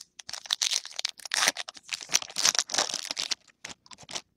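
Trading card pack wrapper being torn open and crinkled by hand, a dense crackling for about three and a half seconds, then a few light crackles near the end.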